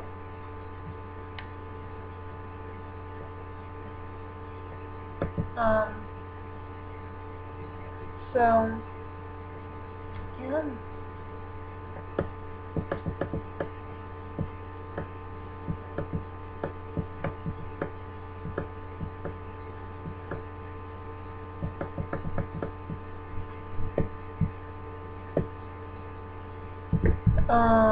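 Steady electrical hum with several steady whining tones over it, carried through the recording. A few short wordless voice sounds in the first half, and scattered light clicks through the second half.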